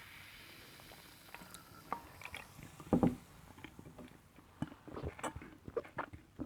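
Close-miked sounds of drinking and munching iced Coca-Cola. A soft hiss at first, then a run of sharp clicks and small cracks from ice and mouth, with one heavier knock about three seconds in.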